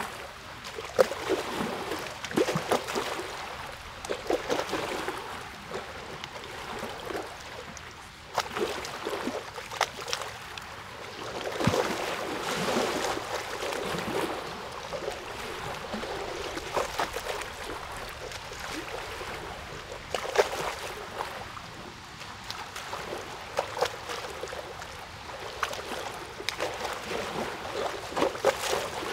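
Water lapping and splashing irregularly, with scattered small clicks and knocks.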